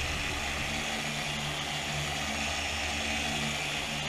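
Electric rotary buffer with a wool pad running at speed 4 against a boat hull, working cleaner wax into the paint: a steady motor hum with a whirring hiss from the spinning pad.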